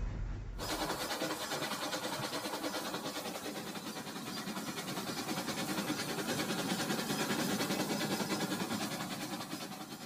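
Battery-powered toy train running along plastic track: a steady rattling whir from its motor and wheels, easing near the end as it passes.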